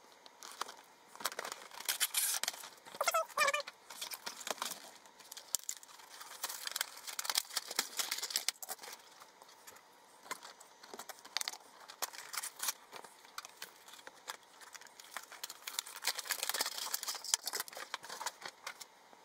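Cardboard toy boxes with plastic inserts being opened by hand: irregular crinkling, tearing and rustling, with many small clicks and knocks of plastic as the toy trains are pulled free. A brief squeak comes about three seconds in.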